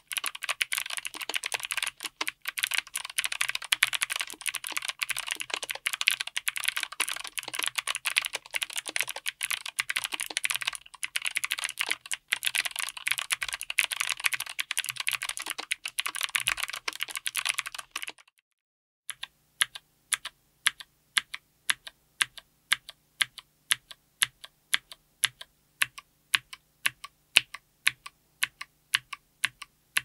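Mechanical keyboard with Gateron Melodic clicky switches, which click by way of a click leaf, GMK ABS Cherry-profile keycaps, an FR4 plate and an aluminium case. It is typed on quickly and continuously for about eighteen seconds. After a short pause, single keys are pressed one at a time in a slow, even rhythm, each press a separate click.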